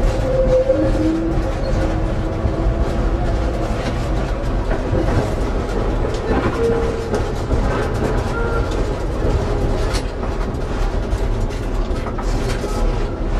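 Tatra T3SU tram running along the track, heard from on board: a steady rumble of wheels on rails with scattered clicks and a few short faint tones over it.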